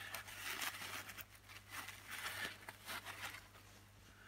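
Faint crinkling and rubbing of a paper towel in gloved hands, wiping a stainless steel spring, in irregular scratchy strokes that die away near the end.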